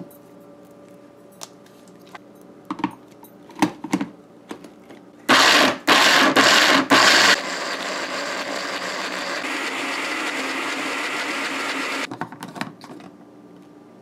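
Personal bullet-style blender pulsed three times in short loud bursts, then run steadily for about five seconds before cutting off, grinding soaked split peas, scallions and garlic with a little water into a paste. Light plastic clicks come before and after as the cup is fitted to and lifted from the motor base.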